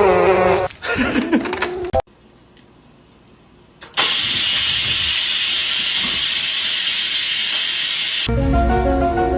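A loud, steady rushing hiss lasting about four seconds, which starts and stops abruptly. A short wavering pitched sound and a few clicks come before it, and a steady pitched tone with a low hum comes after it.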